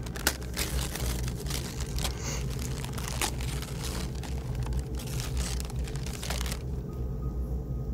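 Gift wrapping paper crinkling and tearing as a present is unwrapped, a dense run of rustles and rips that stops abruptly about six and a half seconds in. A low steady hum runs underneath.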